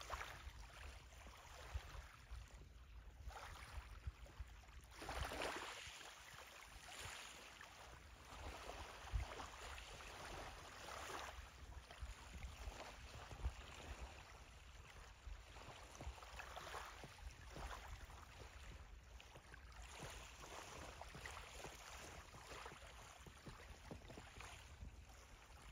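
Faint outdoor ambience by calm water: a low wind rumble on the microphone, with soft swells of water lapping every few seconds and a couple of light bumps.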